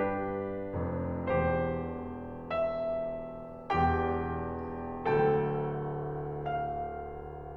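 Slow, gentle piano music: single chords struck about once every second or so, each left to ring and fade.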